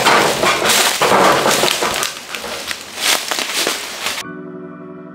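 Loud, irregular rustling and crashing of leafy branches as a long wooden pole is pushed up into a fruit tree's canopy. About four seconds in, it cuts off suddenly and steady organ-like background music begins.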